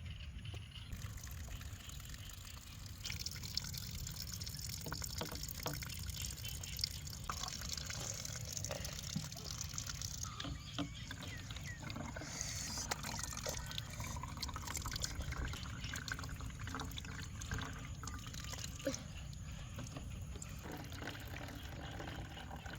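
Water trickling and dripping, with small splashes and ticks, over a steady low rumble.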